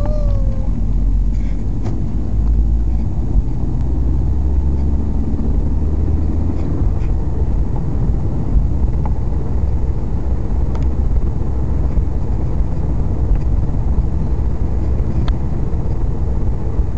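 Steady low rumble of a car driving, heard from inside the cabin: engine and tyre noise on the road, with a few faint ticks.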